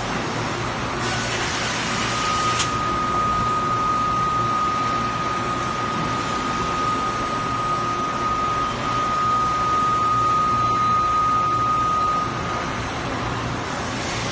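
CNC machine shop noise: machinery running with a steady hum and hiss. About a second in comes a short, bright hiss that ends in a click, and from about two seconds in a steady high whine holds for roughly ten seconds before fading.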